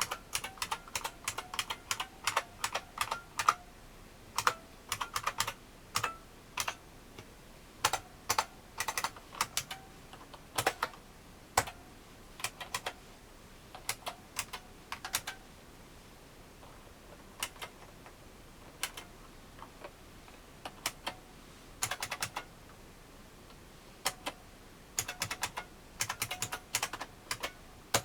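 Typing on a 1986 IBM Model M 1390120 buckling-spring keyboard. Each keystroke is a sharp click, and the clicks come in quick runs broken by pauses of a second or two.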